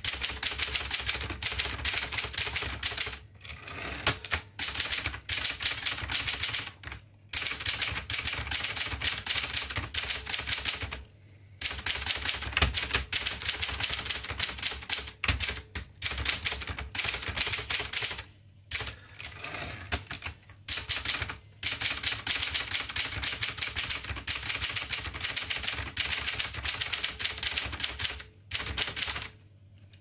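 1958 Adler Special manual typewriter being typed on: a rapid run of type-bar strikes on the keys, broken by several short pauses.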